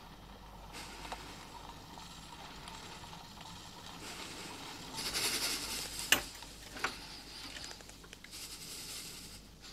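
Quiet handling sounds. Cloth rustles in a short burst about five seconds in, and two sharp clicks follow a second and a half later.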